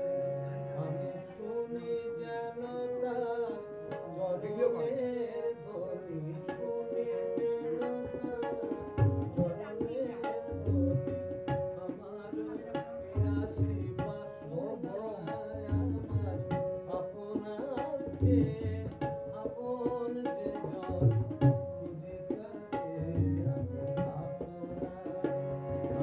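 Tabla and harmonium playing together: the harmonium carries a melody over held notes while the tabla keeps a rhythm, its bass drum giving deep strokes that come in strongly from about nine seconds in.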